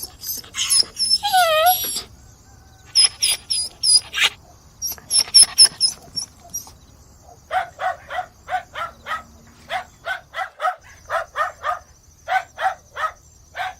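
Dogs barking and yelping. First come high-pitched yips and a falling whine, then more clusters of yips, then from about halfway through a quick run of shorter, lower barks, about four a second in groups.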